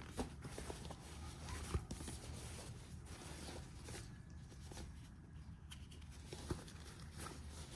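Faint handling noises: scattered light taps and soft rustles of packaging being handled by hand, over a low hum.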